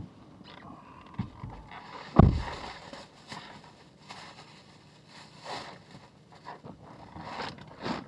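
Plastic takeout bag rustling as it is lifted and handled, with one loud thump about two seconds in.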